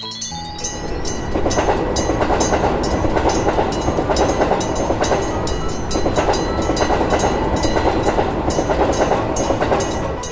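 Train running along the track, a steady rumble with a fast, even clickety-clack of wheels over rail joints.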